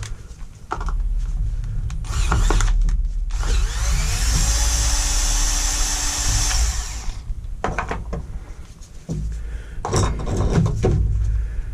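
Electric drill-driver spinning for about four seconds, backing out screws; its pitch rises as it starts and then holds steady. Short knocks and clatter of parts being handled come before and after it.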